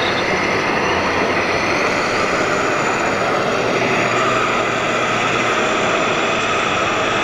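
Steady, dense din of a crowded exhibition hall, with no single sound standing out.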